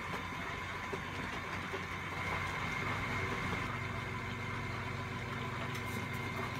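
KitchenAid stand mixer's motor running steadily as it whips heavy cream, a constant hum with a higher whine over it. It gets a little louder about two and a half seconds in.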